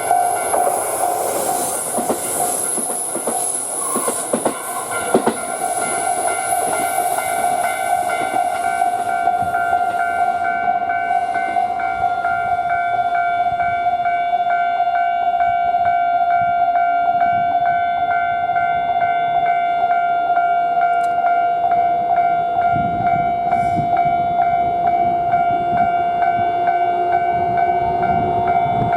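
Japanese level-crossing warning bell ringing steadily and repeatedly while a train runs over the crossing. In the first few seconds the wheels clack over the rail joints with a high hiss that dies away by about nine seconds in. Near the end a low rumble builds as another train approaches.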